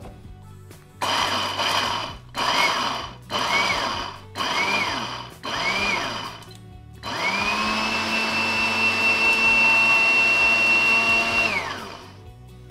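Small personal blender grinding whole peppercorns, mustard seed and other dry spices into a rub. The motor runs in about five short pulses, each whine dying away as it stops, then in one continuous run of about four and a half seconds that winds down near the end.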